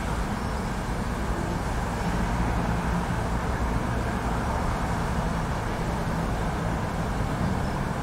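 Steady low rumble of city traffic, with a faint engine hum running through it.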